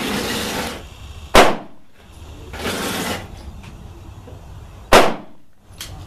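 Two close pistol shots about three and a half seconds apart, each a sharp crack with a short ringing tail. Two brief bursts of rushing noise come before them.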